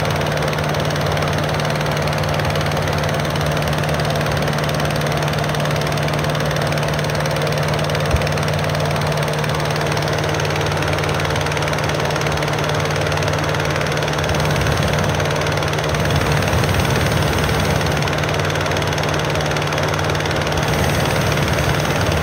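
Gas-engine inflator fan for a hot air balloon running steadily at high speed, blowing cold air into the envelope to fill it. A steady engine hum under an even rush of air, a little louder in the second half.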